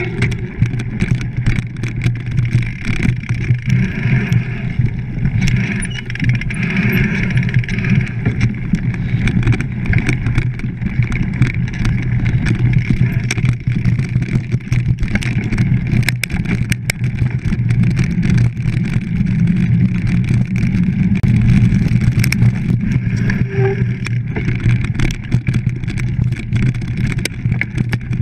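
Mountain bike riding fast over a rough forest dirt trail, with a steady low rumble of wind and ground noise on a bike-mounted action camera's microphone and frequent sharp clicks and knocks from the bike rattling over bumps.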